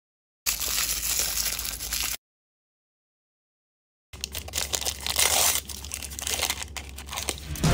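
Plastic blind-bag wrapper crinkling and tearing as it is pulled open by hand, in two bursts with silence between: a short rustle near the start, then a longer, louder stretch of crinkling with sharp crackles from about halfway on.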